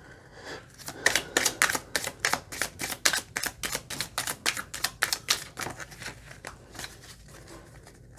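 A tarot deck being shuffled by hand: a quick run of crisp card slaps, about six a second, starting about a second in and thinning out near the end.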